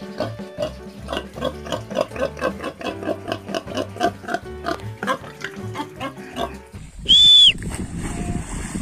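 Piglets grunting and squealing in quick succession over background music. About seven seconds in, the sound changes to a short, loud, high-pitched whistle, followed by rushing, splashing water as sheep plunge into a pond, with wind on the microphone.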